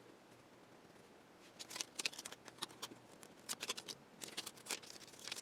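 Faint, scattered clicks and light plastic rustles of hands handling small parts, starting about a second and a half in.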